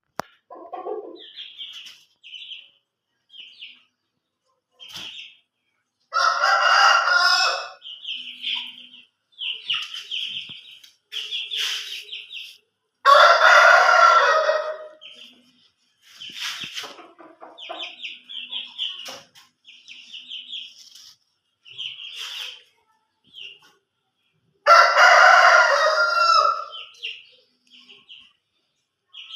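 Aseel rooster crowing three times, each crow lasting about two seconds. Between the crows, chicks give many short, high peeps.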